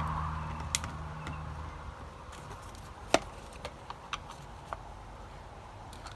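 Scattered light clicks and taps, the sharpest about three seconds in, as of small tools and a plastic speaker casing being handled during disassembly. A low vehicle engine hum fades out over the first two seconds.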